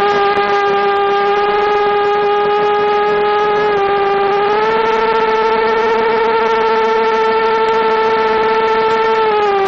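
FPV quadcopter's motors and propellers whining steadily in flight, one steady pitch over a rushing hiss. The pitch rises slightly about four and a half seconds in and falls back near the end as the throttle changes.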